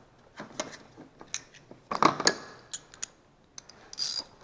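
Steel sockets clinking and rattling against each other as they are picked through in a socket tray, with the loudest clatter about two seconds in. Near the end comes a short ringing metallic clink as a ratchet and socket are handled.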